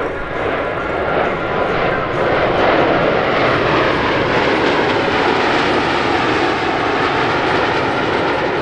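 Four U.S. Navy Blue Angels F/A-18 Hornet jets flying past in formation. The noise of their jet engines builds over the first couple of seconds, then holds steady and loud.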